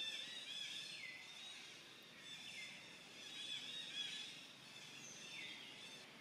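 Baby macaque giving thin, high-pitched squealing calls. Three of them fall sharply in pitch.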